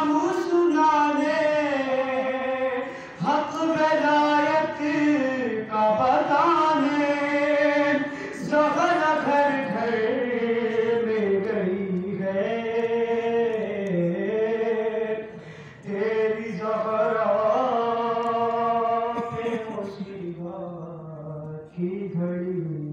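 A young man chanting a noha, a Shia mourning lament, solo and unaccompanied, in long held melodic lines with short breaks for breath.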